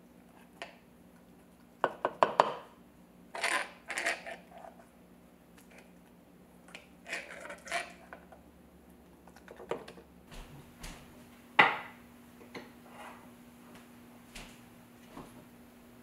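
Metal spoons and a pot clinking and scraping against ceramic bowls as food is served out, a string of separate clinks, the sharpest about two seconds in and again near twelve seconds.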